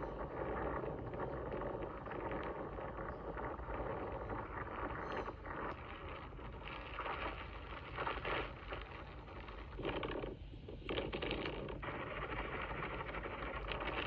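Recorded seaside sound of waves and wind, played back through an iPhone 11's small speaker: a steady, thin, rushing noise with a short dip about ten seconds in.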